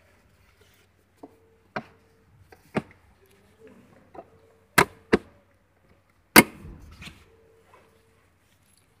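Sharp plastic knocks and clicks as a car's centre armrest console is worked and pressed into place, about seven of them at uneven intervals, the loudest two around five and six and a half seconds in.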